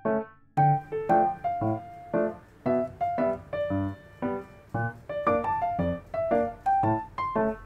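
Background music: a bouncy keyboard tune played in short, separate notes, pausing briefly just after the start.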